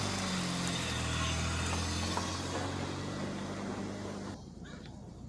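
2007 Chevy Cobalt Sport's four-cylinder engine running at low speed as the car creeps past and moves away. The engine note fades, and the sound drops off sharply about four seconds in.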